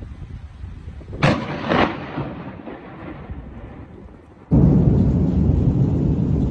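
Thunderclap during a thunderstorm: about a second in, a sharp crack followed by a second crack, trailing off into rumble. About four and a half seconds in, the sound switches abruptly to a loud, steady low noise.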